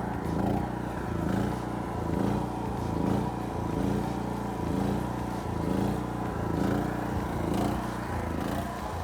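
A small engine running steadily, its note swelling and easing about once a second.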